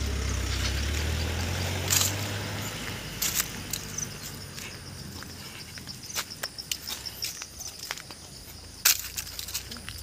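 A vehicle engine hums low and fades away over the first three seconds. Then irregular footsteps fall on a dirt path scattered with dry leaves, with a faint steady high insect drone underneath.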